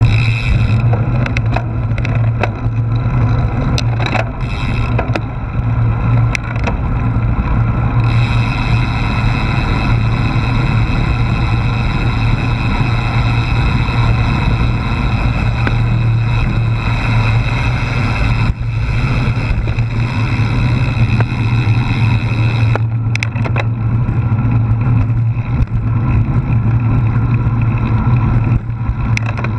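Wind buffeting a GoPro's microphone on a moving road bicycle: a loud, steady rumble mixed with tyre and road noise, with a few sharp clicks or rattles in the first several seconds.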